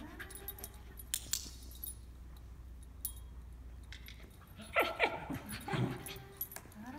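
Dog whining with a held, slightly rising tone near the start, then a quick run of short yips about five seconds in, with a few sharp clicks between.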